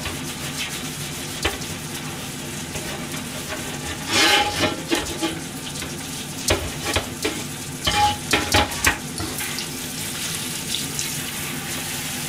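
Chicken wings sizzling steadily in a frying pan, with metal items clattering and clinking in a stainless-steel sink about four seconds in and again for a couple of seconds a little later.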